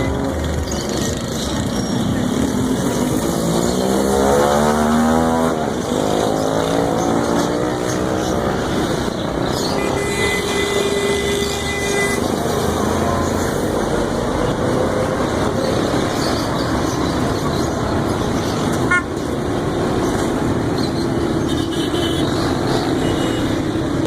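Street traffic: an engine revs up with rising pitch about four seconds in, and a horn sounds steadily for about two seconds near the middle.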